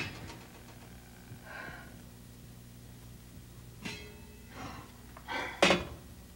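Steel saucepan and its metal lid being handled: a few light knocks and scrapes, then a louder clank near the end. Under it runs a steady low electrical hum.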